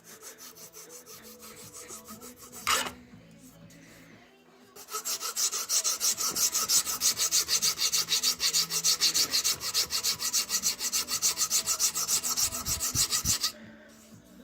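A hand file rasping on a small piece of thin wood from a blind slat, in quick even back-and-forth strokes. The strokes are faint at first, with a single knock about three seconds in. From about five seconds in they turn loud and fast, about five a second, and stop shortly before the end.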